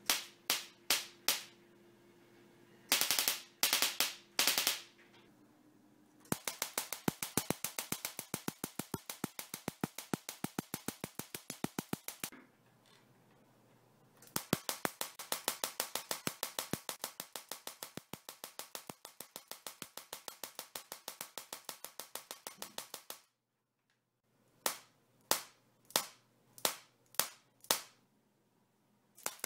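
Homemade Tesla coil firing sparks: loud, sharp snapping discharges. Some come as single snaps a few tenths of a second apart, others as long rapid trains of about seven snaps a second that start and stop abruptly.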